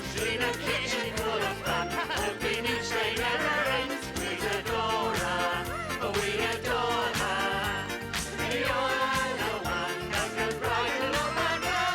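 Children's TV theme song: a sung melody over a band with a steady drum beat.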